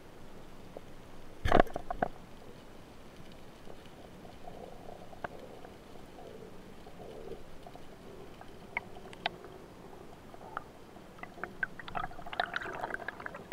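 Underwater sound picked up through a camera's waterproof housing: one loud sharp knock about a second and a half in, then scattered clicks and crackles that come thicker near the end as the camera moves.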